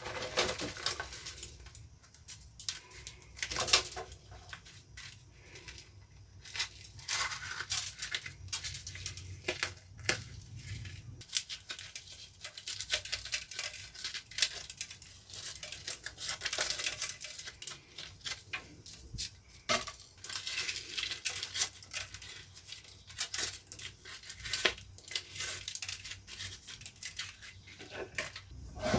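Hands tearing and crumpling something dry and brittle: irregular crackling and rustling with scattered small clicks.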